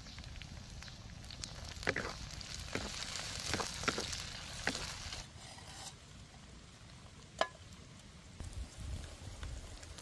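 Food cooking over a wood fire: a steady hiss with several sharp clicks, the hiss dropping away about five seconds in.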